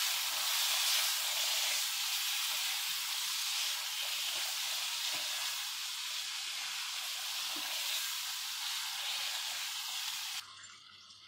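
Chicken pieces and ground spices sizzling in hot ghee in a karahi while being stirred, with a steady hiss from the splash of water hitting the hot pan. The sizzle cuts off abruptly near the end.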